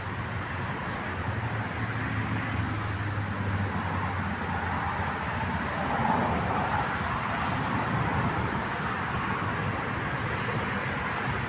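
Steady road traffic noise of cars passing. A low engine hum runs for a few seconds from about a second in, and a passing vehicle swells a little louder about six seconds in.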